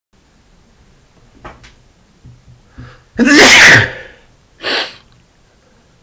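A man sneezing once, loudly, about three seconds in, after a few short catching breaths. A shorter, quieter burst follows about a second later.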